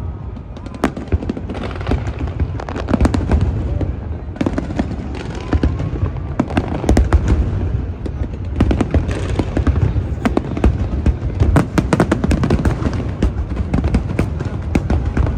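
Large aerial fireworks display bursting in rapid, continuous succession: a dense rumble of booms with many sharp bangs and crackles over it.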